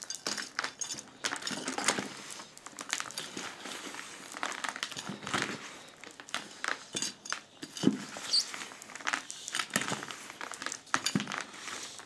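Hand trowel stirring a gritty potting mix of soil, worm castings and activated charcoal in a plastic bucket: irregular scraping, crunching and rattling as the mix turns over against the bucket's sides.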